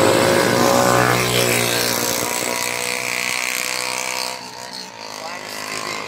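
Large bus engine running close by, a steady low drone, dropping away about four seconds in.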